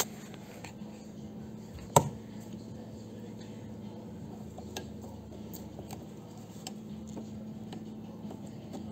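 Small clicks and taps of hands working a retaining clip off a Porsche 996 convertible-top linkage arm, with one sharp click about two seconds in, over a faint steady hum.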